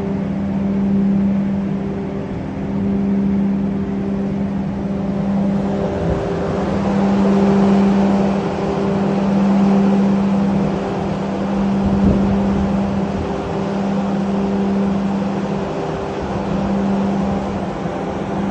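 Steady machinery drone with a constant low hum. A rushing noise, like wind or water, grows stronger about six seconds in.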